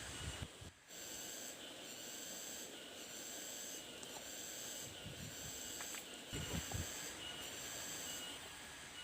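Forest ambience with insects calling in high-pitched pulses about once a second, and a few soft low thumps.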